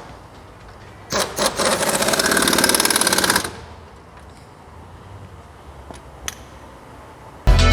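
Impact wrench hammering a nut for about two and a half seconds, a fast steady rattle that stops abruptly, while a strut is being mounted on the car. Electronic dance music starts near the end.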